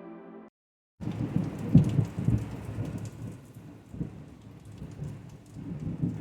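Thunderstorm: rain falling with low thunder rumbling, loudest about two seconds in.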